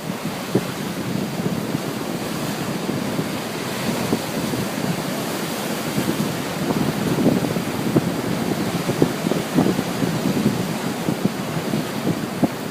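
Ocean surf breaking and washing ashore in a steady rush that swells and eases, with wind buffeting the microphone.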